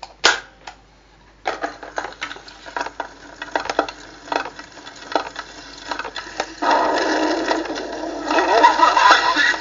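Rapid, irregular clattering and rattling sound effect with a thin, old-record sound. About two-thirds of the way through, louder music with wavering, voice-like pitches comes in over it.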